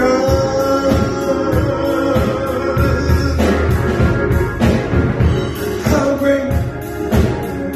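Recorded worship song: singing over a band with a steady drum beat.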